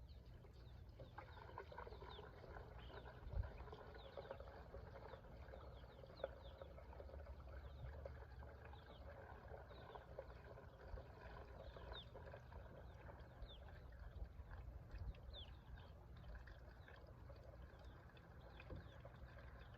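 Faint outdoor background with small birds chirping now and then, and a single soft knock about three and a half seconds in.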